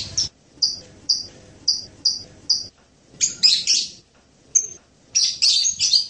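Blue-crowned hanging parrot (serindit) calling: a run of five short, high chirps about two a second, then two louder bursts of jumbled twittering chirps, one near the middle and one near the end.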